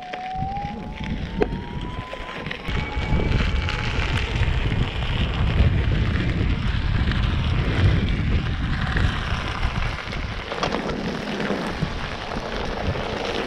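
Veteran Sherman electric unicycle pulling away and riding over a gravel road: its hub motor gives a thin whine that rises in pitch over the first few seconds as it speeds up, under steady wind buffeting on the microphone and the rumble of the tyre on loose stones.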